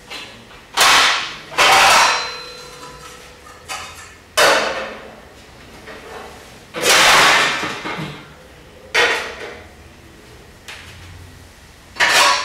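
Metal plates, trays and bowls clanging and clattering against one another, about six loud crashes a second or more apart, each leaving a short metallic ring.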